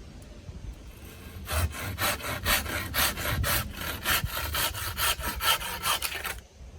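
Hand saw cutting wood in quick back-and-forth strokes, about four a second. It starts about a second and a half in and stops suddenly near the end.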